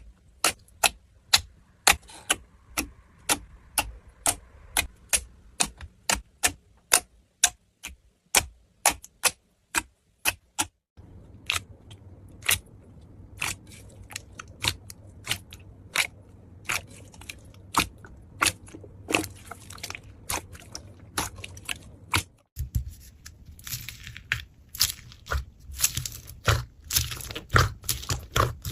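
Slime being handled and pressed, giving sharp pops and clicks about twice a second, then from about a third of the way in denser crackling and crunching pops over a low rumble.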